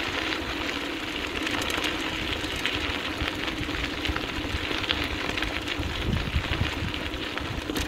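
Wheels of a dryland dog rig rolling over a dirt trail behind a running two-dog team: a steady mechanical hum with constant small clicks and rattles.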